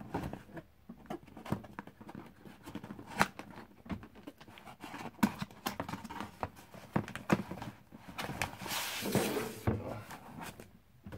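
Cardboard box and foam packing being handled: scattered light knocks, taps and scrapes as the box is slid and opened, with a longer rustling scrape near the end.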